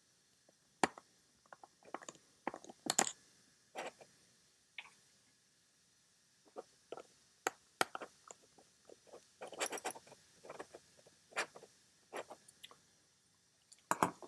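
Tiny lock screws and small metal parts clicking and clinking as they are picked up and handled. The clicks are irregular, with small flurries about three seconds in and around nine to ten seconds in.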